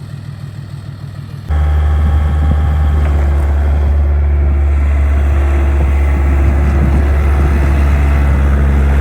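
Skid steer's diesel engine running hard and steady, coming in loud and abruptly about a second and a half in after a quieter engine rumble.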